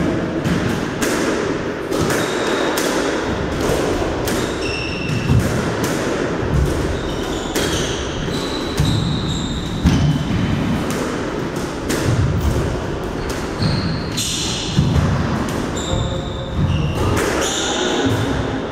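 Squash rally: the ball struck by rackets and cracking off the walls and floor at irregular intervals, with short high squeaks of the players' shoes on the wooden court floor.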